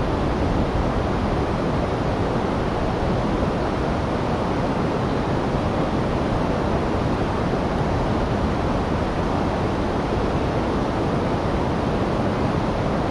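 Steady rushing of river water spilling over a low weir, a constant even wash of noise.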